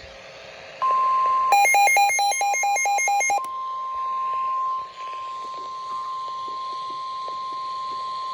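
Weather-alert alarm tone: a steady high tone starts about a second in and is broken for about two seconds by rapid electronic beeping that alternates between two pitches. The steady tone then resumes and holds, signalling the start of a new severe thunderstorm warning broadcast.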